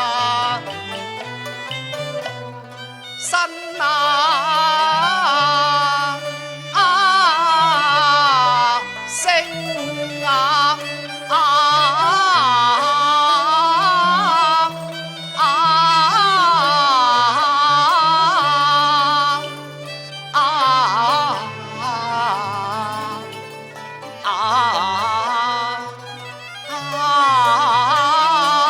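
Cantonese opera music: an ornamented, wavering melody line with vibrato over low sustained bass notes, in phrases of a few seconds each separated by brief dips.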